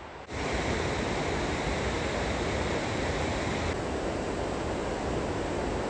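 Steady rushing water from a river weir, an even hiss that starts abruptly just after the start and holds without a break.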